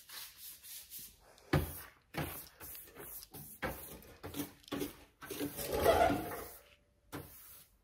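Sandpaper being rubbed by hand over primer on a truck's body panel: a dozen or so short, irregular scratchy strokes, with a longer, louder stroke about six seconds in.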